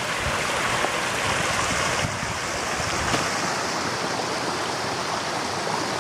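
Shallow mountain stream running over stones, a steady even rush of water.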